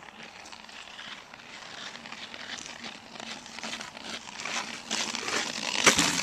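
Ice skate blades scraping and cutting across rough pond ice, getting louder as the skater nears, with a sharp click near the end.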